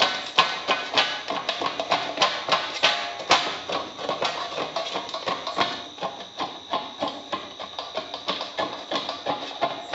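Kitchen knife chopping roasted peanuts on a steel plate: rapid, irregular chops, the blade tapping the metal several times a second. Background music plays under the chopping.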